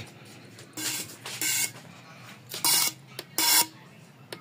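Four short hissing bursts, each about a third of a second long and spaced about three quarters of a second apart, with a faint buzzing tone inside each.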